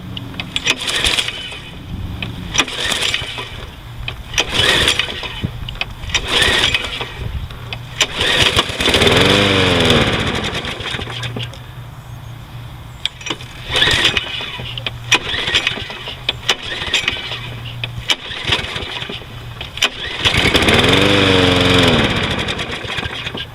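Briggs & Stratton 675 series single-cylinder engine on a Troy-Bilt push mower, pull-started and running roughly. It surges up and falls back in pitch twice, about nine seconds in and again near the end, and will not keep running. The owner blames a crankcase overfilled with oil that has got into the carburetor.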